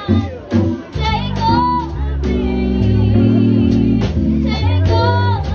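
Live small band: a woman singing through a microphone over a Nord stage keyboard playing chords and bass, with a drum kit keeping time on drums and cymbals. The voice carries two short phrases, about a second in and again near the end, with keyboard chords held between them.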